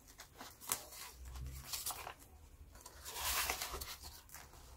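Faint rustling of paper and plastic as a banknote is slid into a clear plastic binder pocket, with small clicks and a longer rustle about three seconds in.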